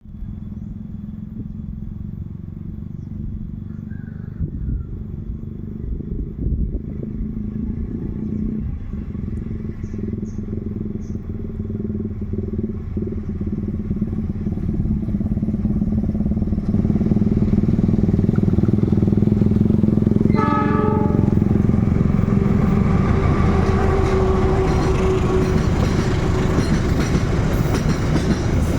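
Diesel-hauled container freight train approaching and passing at speed: a steady low engine note grows louder over the first seventeen seconds or so, a short horn blast sounds about two-thirds of the way through, and the loud rumble of the locomotive and wagons carries on to the end.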